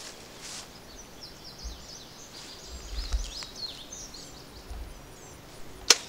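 Faint bird chirps in the open air, then near the end a single sharp snap: a bow being shot at a practice deer target.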